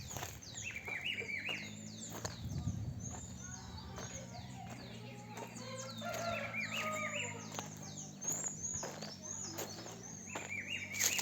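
Small birds chirping, many short falling calls repeated over and over, with scattered clicks and a steady low hum underneath from about a second and a half in.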